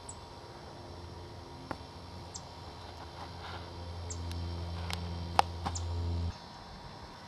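A small songbird's short, high chip notes, about seven scattered single chips, the loudest just past five seconds. They sit over a steady low hum that grows louder and then cuts off suddenly about six seconds in.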